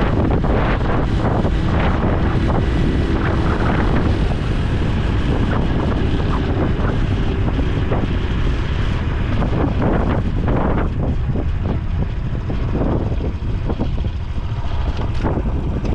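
Honda Super Cub C125's air-cooled 125 cc single-cylinder engine running while riding on the road, mixed with heavy wind rush over the camera microphone.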